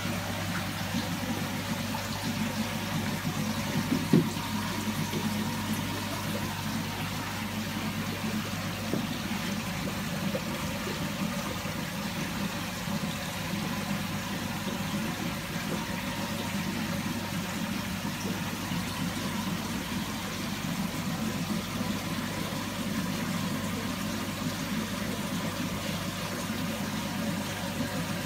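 Steady running water from a stingray pond's water circulation, under a constant low hum. A single sharp knock about four seconds in.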